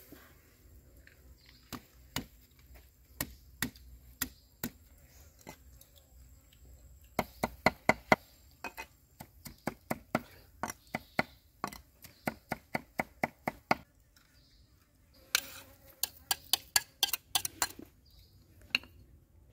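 Knife chopping a minced meat filling on a thick wooden chopping board: scattered single strokes, then quick runs of chops, about five a second.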